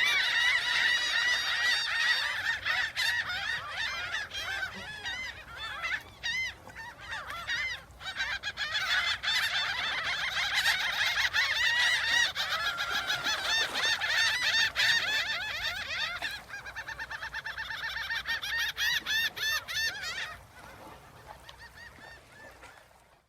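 A flock of geese honking, many calls overlapping at once; the calls thin out about 20 seconds in and stop abruptly just before the end.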